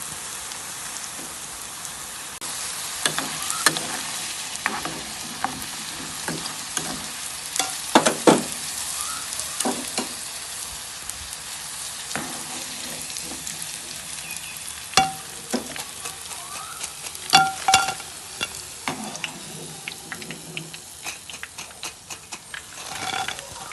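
Battered raw-jackfruit pakoras deep-frying in hot oil with a steady sizzle, while a utensil stirs them and clinks against the pan now and then, a few clinks ringing briefly.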